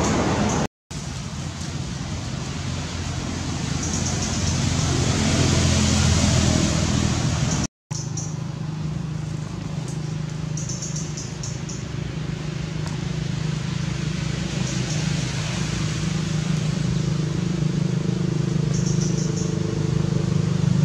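Motor vehicle engine noise: a hiss that swells and fades like a vehicle passing, then a steady low engine hum. The sound drops out briefly twice.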